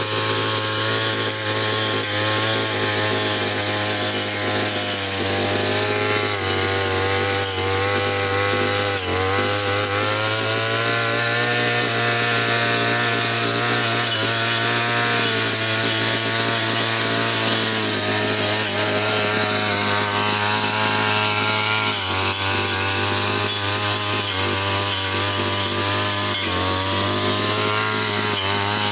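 Brush cutter running at high speed with a steady buzzing note whose pitch dips briefly several times as the spinning cutting head bites into thick grass, then recovers.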